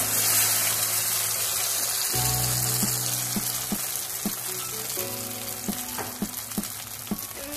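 Spinach puree sizzling as it hits hot ghee in a pan, a loud hiss that is strongest at first and slowly dies down.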